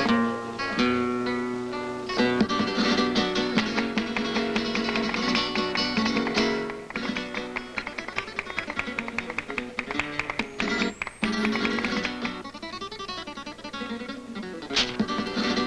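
Flamenco music on acoustic guitar, strummed and plucked in quick rhythmic chords, dropping to a quieter passage about seven seconds in.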